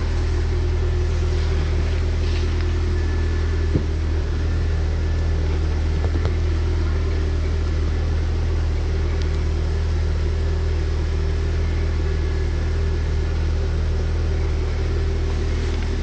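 2002 Ford Mondeo LX engine idling steadily, a constant low hum with no revving, and a couple of faint clicks.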